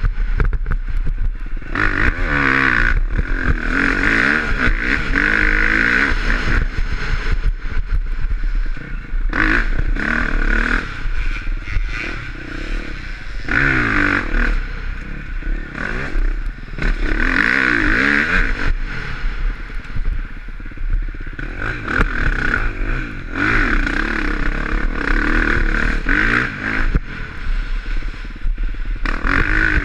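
2020 KTM 350 XC-F four-stroke single-cylinder dirt bike engine under hard riding, its pitch rising and falling again and again as the throttle is opened and shut off. Clattering and scraping run underneath.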